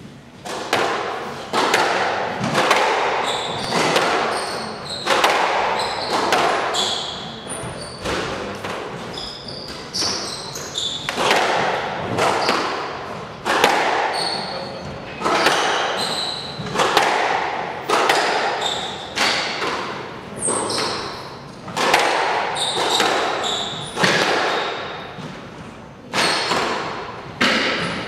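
Squash rally: the ball is struck by the rackets and smacks off the court walls about once or twice a second, each hit echoing around the enclosed court, with the players' court shoes squeaking on the wooden floor between shots.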